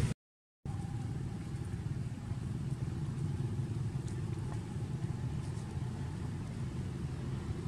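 Steady low background rumble, with a brief cut to total silence just after the start.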